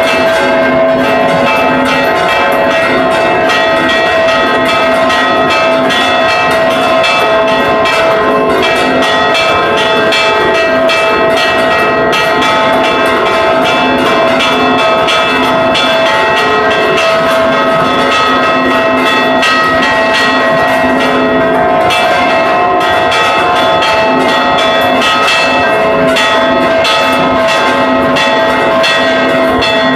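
Church tower bells rung in a fast repique, their clappers pulled by ropes. Loud, overlapping strokes come in quick succession over the continuous ring of several bells, without a pause.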